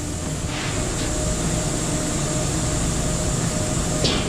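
Steady machine drone with a low rumble and a constant hum, and a short knock near the end.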